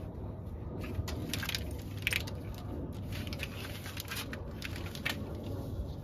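A wiring harness being pulled by hand through a golf cart's front frame: irregular crackles and scrapes as the wires rub and catch, over a steady low rumble.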